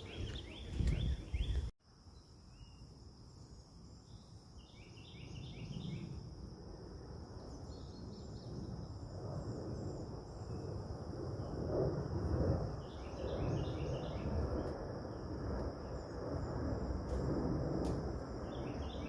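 Outdoor woodland ambience: a steady high-pitched insect drone, with short bursts of rapid chirping a few times, over a low rumble.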